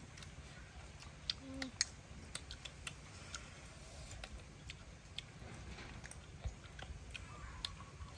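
Eating cooked snails: scattered small sharp clicks of the shells being handled and picked at with a pin, with faint chewing.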